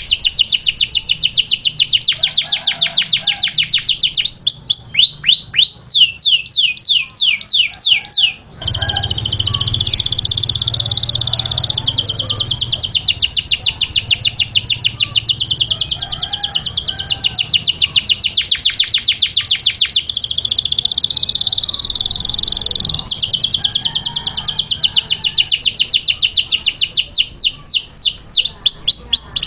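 Domestic canary singing: fast rolling trills of rapidly repeated notes, with a run of slower downward-sweeping notes about five seconds in and a short break after about eight seconds.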